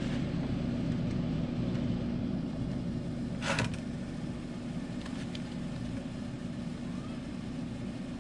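Air conditioner running with a steady hum and whir. A single short knock about three and a half seconds in, and faint clicks a little later.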